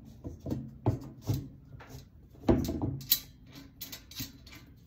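Short clicks, knocks and light scrapes of a titanium sand scoop's handle and its bolt hardware being handled and fitted together, about half a dozen sharp knocks with the loudest about two and a half seconds in.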